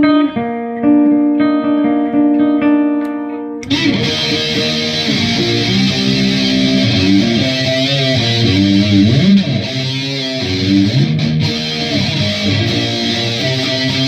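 Electric guitar (Dean Cadillac) through a Boss MT-2 Metal Zone pedal and an Orange Super Crush 100 amp. It opens with clean, ringing picked notes, then a little under four seconds in switches abruptly to heavily distorted, high-gain riffing.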